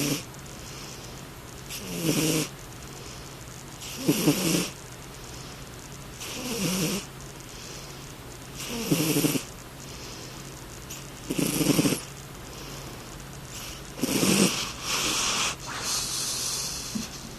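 A sleeping cat snoring, one low rattling snore with each breath about every two and a half seconds, then a few quicker, longer breaths near the end.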